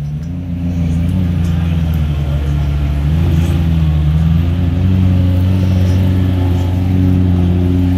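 McLaren Senna's twin-turbo V8 idling steadily up close, a low, even engine note with a slight dip and rise in pitch midway.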